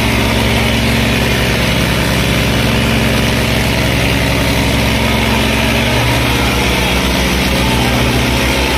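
Two tractors' diesel engines, a Swaraj 855 XM and an old Eicher, running hard under heavy pulling load, a steady low drone. The engine note shifts about six seconds in.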